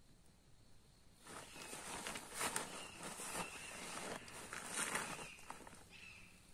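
Irregular rustling and crunching with scattered clicks, as of someone moving on the forest floor, for about four and a half seconds. A short chirping call is heard near the end.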